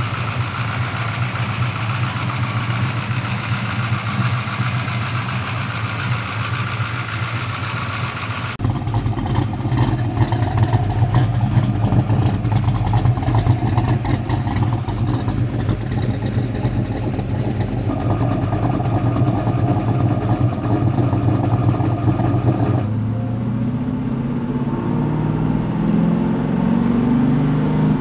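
Blueprint Engines 7.0-litre stroked LS3 V8 with fuel injection idling steadily, heard first at the engine bay. After a cut about nine seconds in it is heard at the exhaust tailpipe, louder and with more low rumble. Near the end the car is driving, the engine note rising as it pulls.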